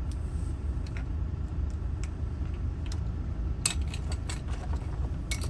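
Small metallic clicks and taps from the parts of a Honda ignition lock cylinder being handled and fitted together, a cluster of them about three and a half seconds in and more near the end, over a steady low rumble.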